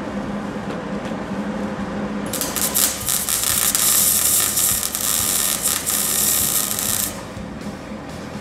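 MIG welder arc crackling and hissing as a bead is run on a steel exhaust pipe joint, starting about two seconds in and stopping about seven seconds in. A steady low hum lies under it throughout.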